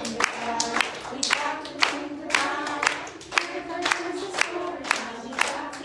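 Voices singing a children's song together, with hand claps keeping time at about two a second.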